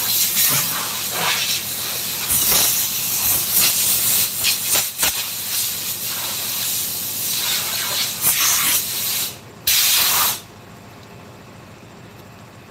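Compressed air hissing from a workshop air tool in a run of uneven bursts, shutting off about ten seconds in.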